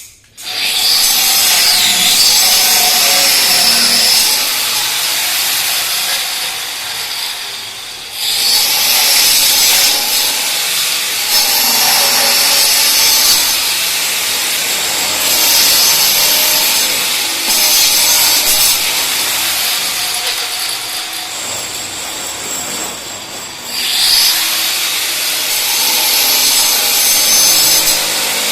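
A saw cutting steadily, with short pauses about a third of the way in and again about four-fifths through.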